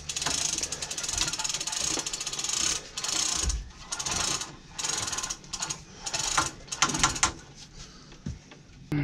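Manual chain hoist ratcheting in short bursts of rapid clicks, about one pull a second, taking up an inboard boat engine's weight for a slight lift. The clicking stops near the end.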